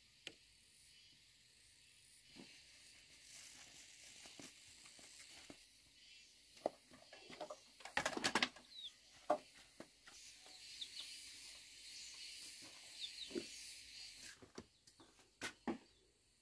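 Scattered light knocks and clicks, with a brief clatter of several knocks about eight seconds in, and a few faint, short, high chirps.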